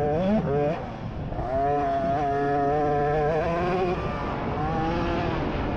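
A 50cc youth dirt bike engine revs hard as the bike picks up speed. The pitch climbs just after the start, drops about a second in, climbs and holds, then dips and rises again near the end.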